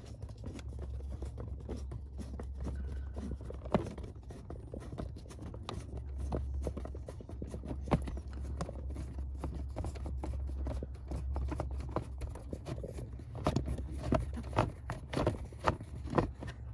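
Screwdriver turning a screw out of a plastic steering-column shroud: scattered small clicks and scrapes of metal on plastic, coming faster near the end, over a low steady hum.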